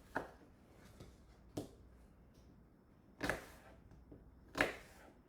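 Kitchen knife chopping apple on a cutting board: four sharp knocks, irregularly spaced a second or more apart, the last one the loudest.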